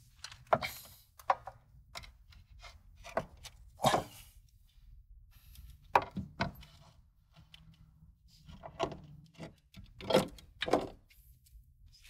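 Scattered knocks and clunks, about a dozen at uneven intervals, as a Rancho Quicklift front strut assembly is worked up into a pickup's wheel well and bumps against the suspension parts.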